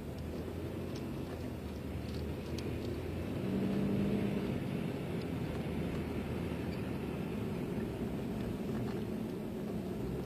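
Car driving, heard from inside the cabin: a steady low engine and road-noise rumble, with the engine tone rising briefly about four seconds in.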